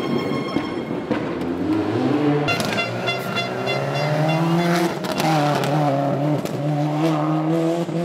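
Rally car engines revving hard, the pitch climbing and dropping again with each gear change and lift-off. A few sharp cracks come about two and a half and five seconds in, and there is a high whine at times.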